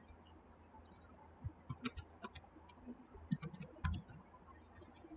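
Computer keyboard keys clicking as a search query is typed, in short irregular runs of keystrokes over a faint low hum.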